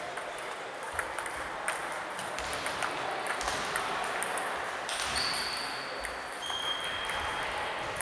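Table tennis ball clicking off bats and table in a rally, with more ball knocks from nearby tables echoing around the hall. Two short high squeaks come in the second half.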